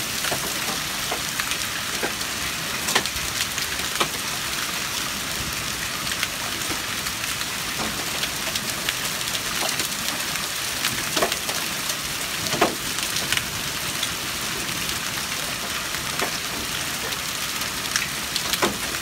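Hail falling during a night hailstorm onto concrete, brick and mulch: a steady hiss dotted with sharp clicks of single hailstones striking hard surfaces, a few louder than the rest.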